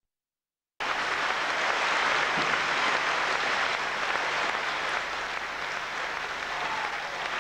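Audience applauding: a dense, steady clapping that cuts in sharply about a second in and eases slightly toward the end.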